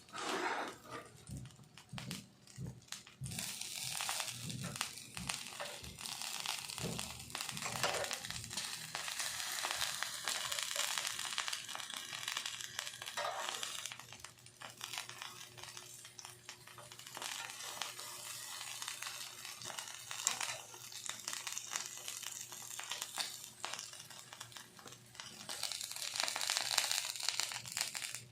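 Continuous crinkling and crackling, with a row of short light knocks in the first several seconds.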